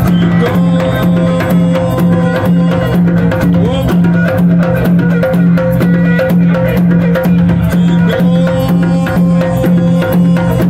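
Live Afro-jazz fusion band playing: djembe hand drums keep a quick, steady beat under an electric guitar, over a deep, sustained bass line.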